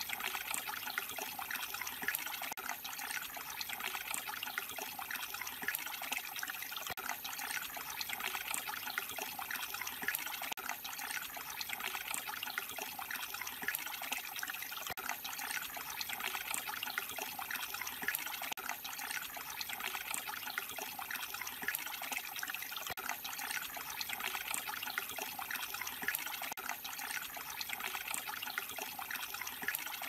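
A thin stream of water trickling over carved stone and splashing into a small rock pool, running steadily.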